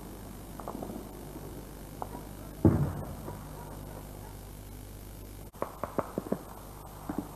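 Muffled gunfire: one heavy shot about two and a half seconds in, then a quick string of short sharp shots a little after the middle and two more near the end, over a low steady hum.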